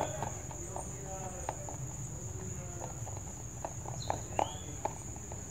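A rabbit crunching dry pellet and dried-vegetable food from a bowl, in short irregular crunches, with a steady high insect drone of crickets behind it.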